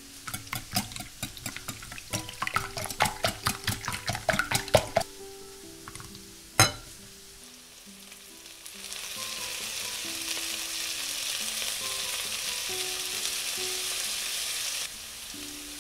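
A wire whisk beats eggs and milk in a glass bowl, making a quick run of clicks against the glass for about five seconds. Then broccoli sizzles in a frying pan, a steady hiss that cuts off suddenly near the end.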